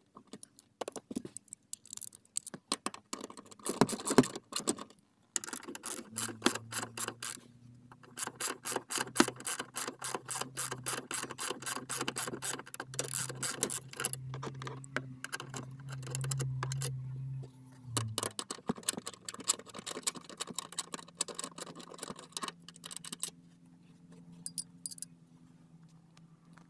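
Socket ratchet wrench clicking in quick runs with short pauses as it loosens the bolts holding a car seat's rails to the floor. A low steady hum runs underneath for a stretch in the middle.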